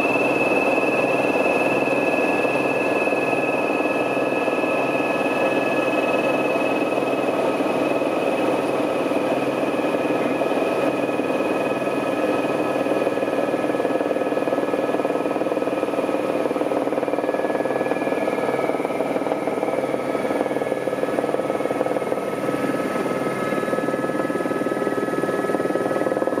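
Helicopter turbine engine and rotor running steadily as it comes down to land on glacier snow, with a high whine that sinks slightly in pitch.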